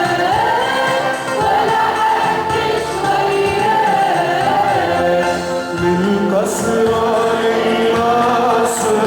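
Arabic Christian hymn sung by a male hymn singer over musical accompaniment, a steady sung melody.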